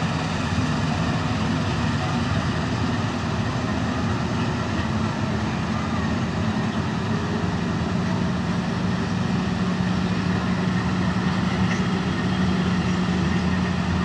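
Combine harvester running in a wheat field, a steady engine drone mixed with the rush of its machinery. A low hum in the drone grows stronger about eight seconds in.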